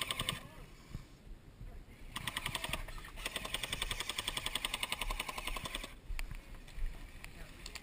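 Airsoft gun firing full-auto bursts, a fast even rattle of shots: a short burst at the start, another about two seconds in, then a longer burst of about three seconds.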